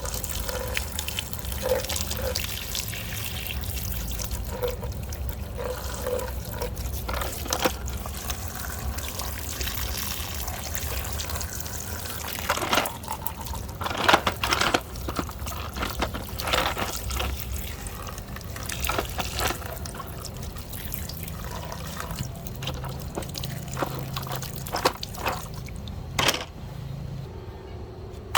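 Water splashing and trickling while muddy plastic toy vehicles are washed, with irregular clicks and knocks of the toys being handled.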